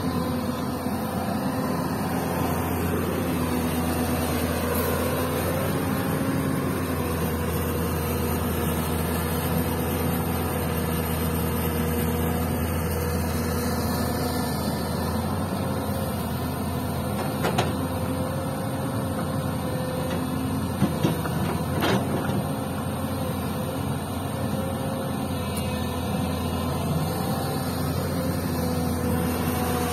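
Diesel engines of a Hyundai crawler excavator digging and loading soil and a Mitsubishi Colt Diesel dump truck idling beside it: a steady drone whose pitch sways a little as the excavator works. A few sharp knocks come past the middle.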